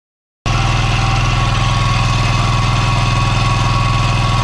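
418cc single-cylinder air-cooled diesel engine running steadily on its first run, with an even, fast pulsing beat. The sound starts abruptly about half a second in, after silence.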